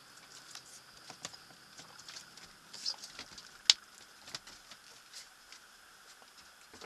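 Light scattered knocks and taps of someone stepping down a sailboat's wooden companionway into the cabin, with one sharp click about halfway through, over a faint steady high hiss.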